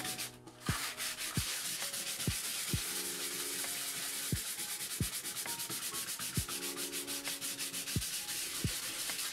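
Hand-sanding with 220-grit sandpaper over a cured epoxy patch on a bathtub: quick, even back-and-forth rubbing strokes that level the epoxy and take off its high spots, with a short pause about half a second in.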